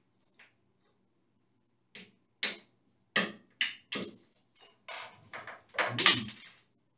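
A hand tool knocking and scraping at a hole through the tiled shower wall: about five sharp knocks a second or two apart, then a denser, louder scraping rattle with a high metallic ring about five to seven seconds in.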